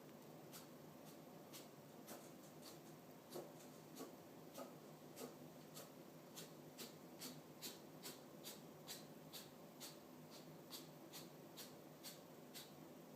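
A pet rabbit sneezing over and over in a sneezing fit: faint, short sharp puffs, two or three a second at times, irregularly spaced.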